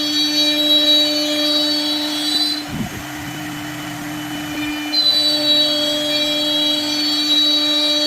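Electric woodworking machine motor running with a steady hum and high whine. It winds down briefly a little under three seconds in, then runs again from about five seconds on.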